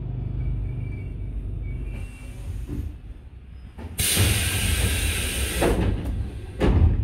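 Tobu 8000 series train's pneumatic doors working: over a steady low rumble, a sudden loud hiss of air about four seconds in that lasts under two seconds, then a heavy thump near the end.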